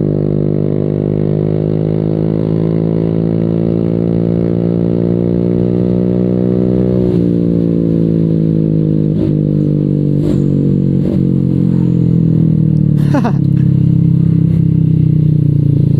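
Honda Vario 150 scooter's single-cylinder engine through a Proliner aftermarket exhaust, running on the move: the pitch climbs slowly under throttle, drops sharply about seven seconds in as the throttle eases, then holds a steady cruise.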